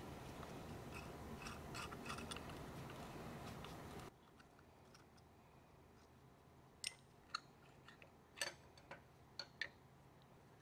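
A small screwdriver working revolver screws gives faint ticks over a steady shop hum, which drops about four seconds in. Then about six sharp metallic clinks as the 1851 Navy revolver's small steel parts are handled and set on a steel workbench.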